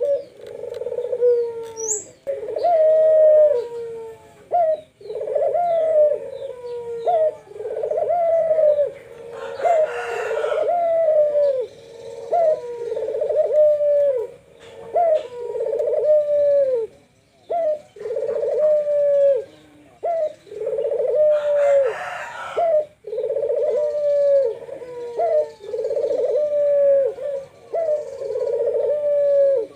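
Barbary doves (puter) cooing over and over in rolling phrases, one after another with short gaps between them. A brief rustling noise cuts across the cooing twice.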